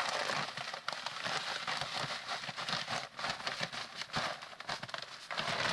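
Aspen shavings substrate being poured and spread in a vivarium: a dense crackle and patter of dry wood chips, with the rustle of the bedding's bag.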